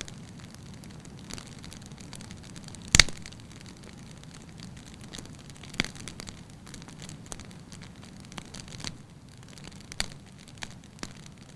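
Fire crackling in a fireplace: a steady low rush of flames with scattered sharp pops and crackles, the loudest about three seconds in.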